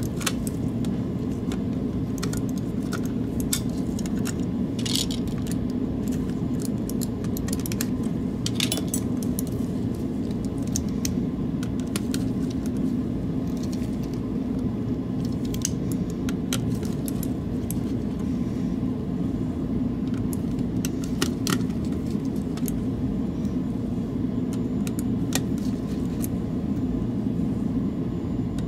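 Scattered small clicks and taps of a Logitech G703 mouse's plastic shell and parts being taken apart by hand, over a steady low hum.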